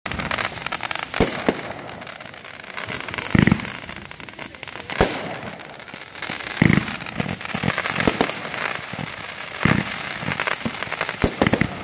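Ground-launched fireworks in a grand finale: a constant dense crackling with a rapid run of launches and bursts, and heavier bangs every second or two, the loudest about three and a half and six and a half seconds in.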